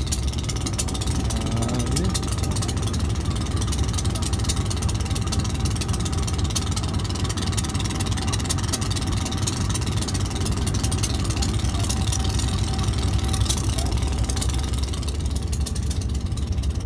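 RGE-20 diesel-electric locomotive's engine running with a steady deep rumble as the train moves slowly.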